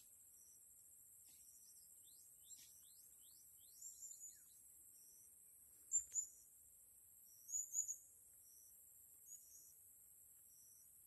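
Birds chirping over a steady high insect drone: a run of quick down-slurred notes about three seconds in, then loud sharp chirps near the middle and again about two-thirds through, with short pips repeating evenly.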